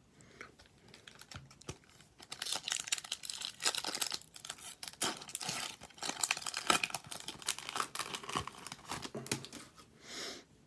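A hockey trading-card pack's wrapper being torn open and crinkled in the hands: a dense run of crackling that starts about two seconds in and dies down near the end.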